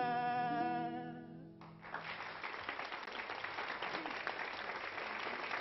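A man's long held sung note, the end of a song, fades out over about a second and a half. Then studio audience applause breaks out suddenly and carries on.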